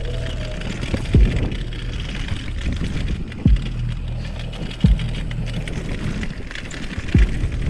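Mountain bike rolling down a loose gravel dirt trail: a steady rumble of tyres on gravel with wind noise. Over it, a deep, falling bass-drum thump from electronic background music repeats in a regular pattern, about every one and a half to two and a half seconds.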